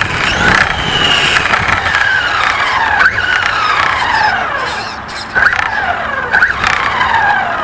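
Electric motor of a radio-controlled car whining up sharply and then winding down in a long falling pitch, about four times as it is driven in bursts of throttle.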